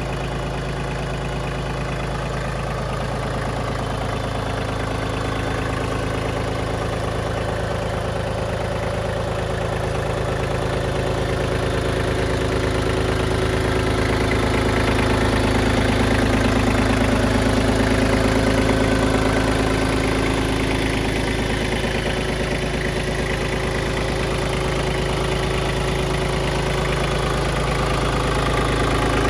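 Iseki TPC15 compact crawler tractor's three-cylinder diesel engine idling steadily, with an even, fast firing beat. It grows a little louder in the middle and then eases off again.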